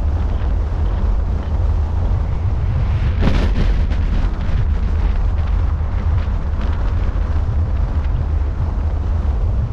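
Wind buffeting the microphone of a camera mounted on a moving car's roof: a steady, heavy low rumble, with a brief louder rush a little over three seconds in.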